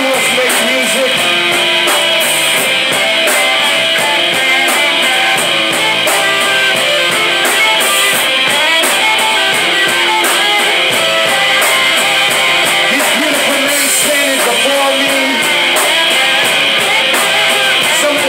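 Live rock band playing loudly: electric guitar, electric bass and drum kit, with a steady beat of cymbal hits throughout.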